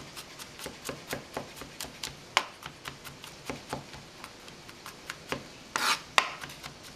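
Chef's knife chopping garlic on a plastic cutting board: quick, irregular taps about five a second, with one short scrape near the end.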